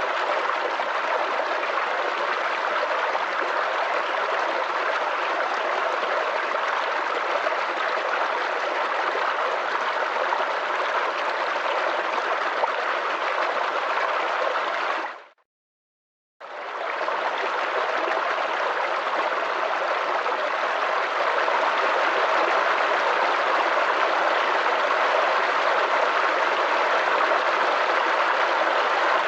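Small brook babbling and gurgling over stones in a steady rush of running water. About halfway through it fades out to a second of silence, then comes back abruptly.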